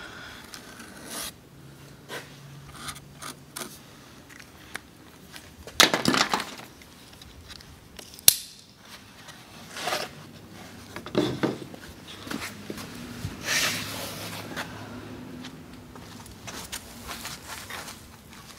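Scattered scrapes and knocks, with a sharp click about eight seconds in, as carpet is handled and trimmed with a razor blade.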